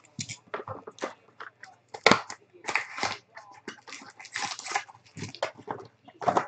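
Plastic wrapper of a trading-card pack crinkling and tearing as it is pulled open by hand, in a run of irregular crackles.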